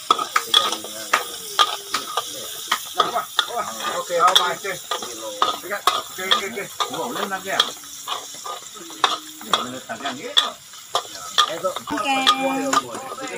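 Metal spatula scraping and clattering against a steel wok as sliced garlic and ginger stir-fry, sizzling in hot oil. Near the end a drawn-out pitched call is heard.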